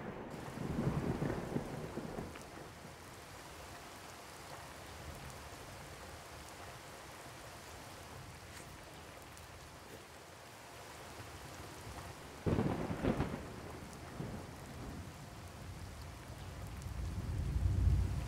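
Thunderstorm: steady rain, with a sudden loud crack of thunder about twelve seconds in and a deep rumble of thunder building near the end.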